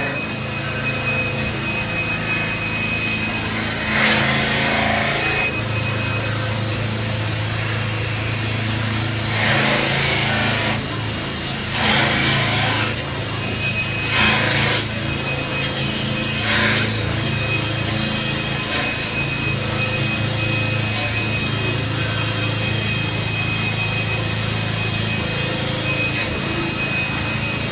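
CNC metal spinning lathe running, its forming roller pressed against the spinning metal workpiece on the mandrel: a steady machine hum with a thin high tone, and several brief rasping surges as the roller works the metal.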